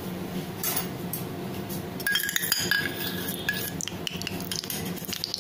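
Stainless-steel kitchen utensils clinking and knocking, with short ringing chinks about two to three and a half seconds in, over a steady low hum.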